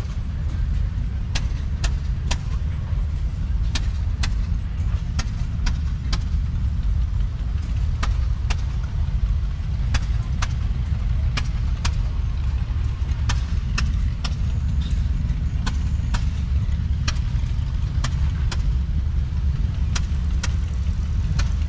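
An engine running steadily with a deep rumble, with sharp pops or clicks coming irregularly about once or twice a second.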